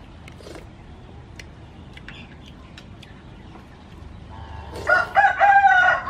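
A rooster crowing near the end: a couple of short broken notes, then one long held call. Before it there is only faint background with a few scattered small clicks.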